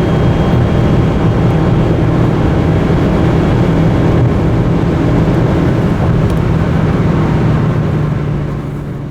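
Ford Fiesta Mk7's 1.25 litre four-cylinder petrol engine running at a steady, unchanging engine speed, with road and wind noise, fading out near the end.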